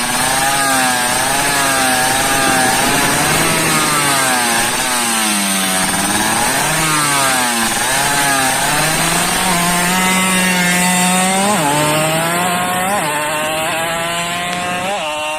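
Yamaha F1ZR's two-stroke single-cylinder engine being revved over and over, its pitch sweeping up and down in long swells, then holding high before a few quick throttle blips near the end.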